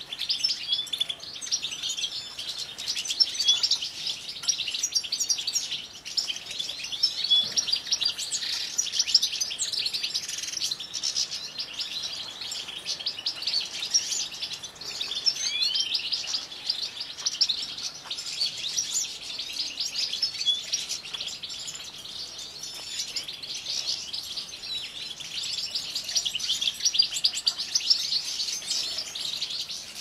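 A dense chorus of many small aviary finches chirping and twittering without a break, calls overlapping throughout.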